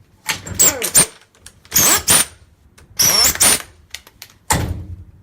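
Air-conditioning compressor pulley spun by hand four times, each spin rumbling and falling in pitch as it coasts down. The sound comes from a worn pulley bearing, which is the source of the noise the customer complains about.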